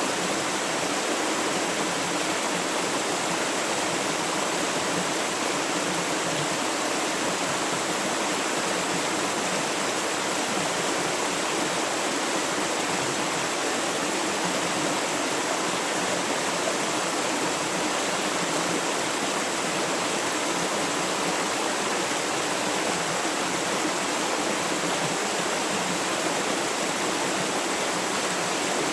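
River water flowing in a steady, even rush without breaks.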